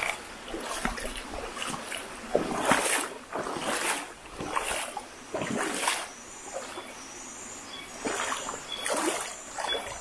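Water splashing in a shallow stream in irregular bursts about once a second, over a steady background hiss.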